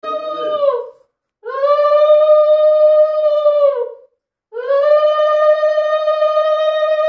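Conch shell blown in long, steady, one-note blasts with short breaths between; the first stops about a second in, the second runs from about 1.5 s to 4 s, and a third is still being held at the end. The completed blasts sag slightly in pitch as they die away.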